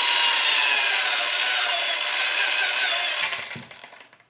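Handheld electric belt sander running with a hand pressed against its moving belt, a steady loud rasp with a faint whine. It is switched off about three seconds in and winds down.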